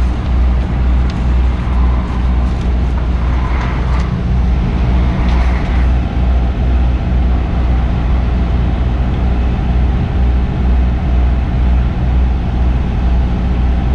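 Lorry's diesel engine idling with a steady, low, evenly pulsing hum.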